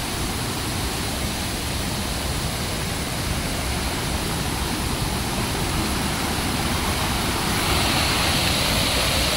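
Waterfall: water rushing steadily over rock ledges and through the channels of a rocky river cascade. It grows louder and more hissing near the end.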